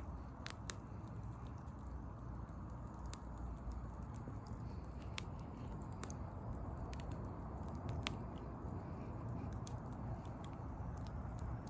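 Wood fire burning: a steady low rush with scattered, irregular sharp pops and crackles.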